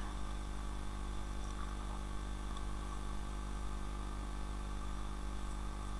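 Steady low electrical hum with a faint hiss, unchanging throughout: background room tone with no speech.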